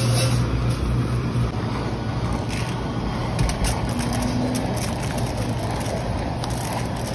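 Handheld butane blowtorch flame burning steadily, a constant rushing hiss with a low rumble, as it heats a steel cake ring to release the cake inside.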